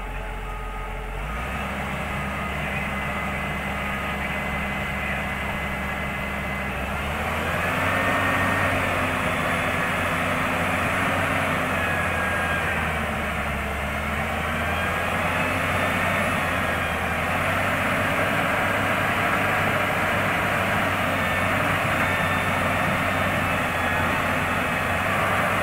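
Hyundai R210W-9S wheeled excavator's diesel engine running under load as the machine drives itself up ramps onto a low-bed trailer; it rises in pitch and loudness about seven seconds in and holds there, with a higher whine that wavers up and down.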